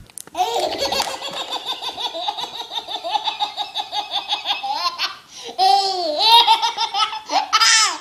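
A baby's belly laugh: a long run of quick, even laughs lasting about five seconds, then, after a short breath, a few louder laughing bursts that rise and fall in pitch.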